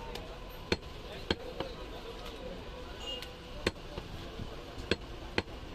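Butcher's cleaver chopping goat leg meat on a wooden log chopping block: about six sharp, separate chops at uneven intervals, with voices murmuring in the background.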